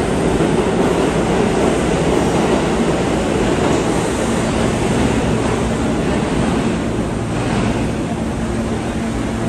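R160A subway car running through the tunnel, heard from inside the car: a loud, steady rumble of wheels on rail, with a faint steady hum joining about four seconds in.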